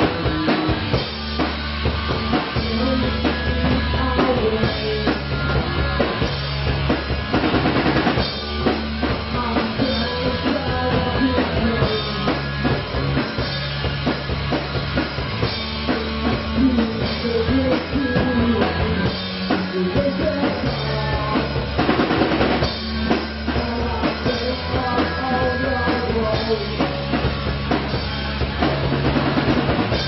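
Live rock band playing: electric guitar, bass guitar and drum kit, with steady bass notes under driving drums. Cymbal crashes ring out about eight seconds in and again around twenty-two seconds.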